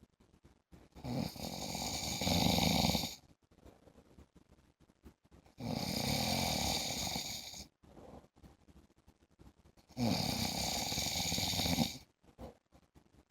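A man snoring in his sleep: three long, regular snores, each about two seconds, coming every four to five seconds with quiet gaps between.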